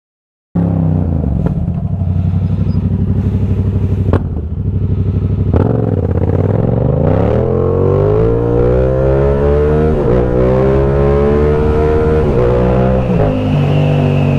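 Yamaha 689 cc parallel-twin motorcycle engine running under way, heard from the rider's seat. It cuts in after half a second of silence, runs steadily, then rises in pitch from about halfway through as the bike accelerates, and holds there with small rises and dips.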